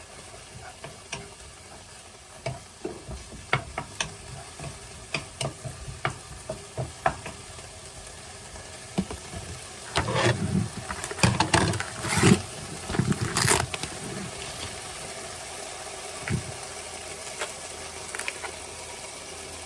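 Food sizzling in a frying pan with a steady hiss, while a utensil stirs and taps against the pan in scattered clicks. A louder burst of clatter and stirring comes in the middle.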